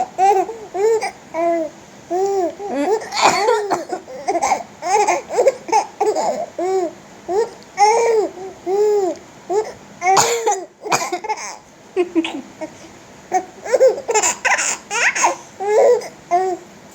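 A three-month-old baby boy laughing in a long run of short, high, squealing laughs, with a few coughs breaking in between them.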